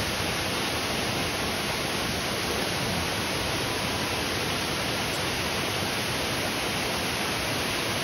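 Waterfall pouring into a pool: an unbroken, steady rush of falling water.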